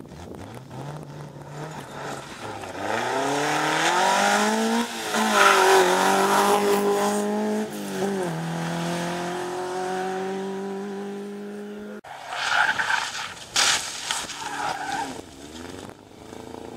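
Peugeot 205 rally car accelerating hard, its engine revs climbing and dropping back at gear changes about five and eight seconds in. After a sudden cut near twelve seconds come short bursts of engine and the hiss of tyres sliding on loose gravel.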